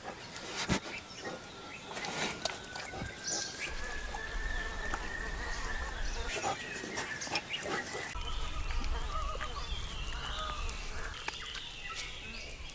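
Forest ambience with birds calling and scattered clicks and knocks over a low rumble.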